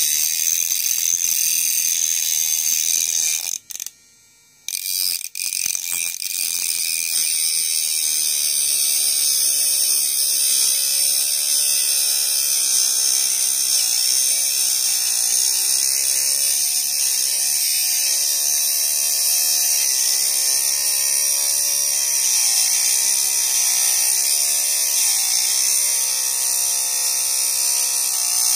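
Homemade battery-powered mini grinder, a small DC motor with a thin cutting disc, cutting through a steel nail: a high hissing grind over the motor's whine, which dips and rises in pitch as the disc bites. It stops for about a second around four seconds in, then starts again.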